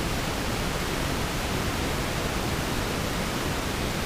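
Steady, even background hiss with no distinct event in it.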